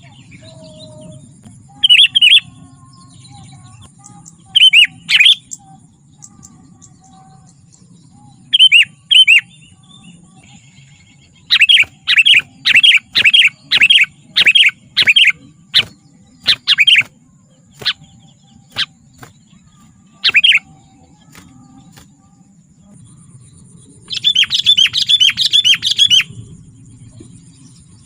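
Sooty-headed bulbul (kutilang) calling loudly in short bubbly phrases, first singly and in pairs, then a run of about a dozen evenly spaced calls, and near the end a fast chattering burst lasting about two seconds.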